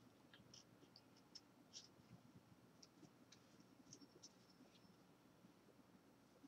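Near silence with faint, scattered clicks and light scrapes of cardboard trading cards being thumbed through in the hands and one set down on a towel.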